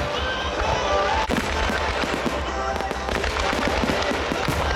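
Fireworks display: aerial shells bursting with many sharp pops and bangs in quick succession, with music playing underneath.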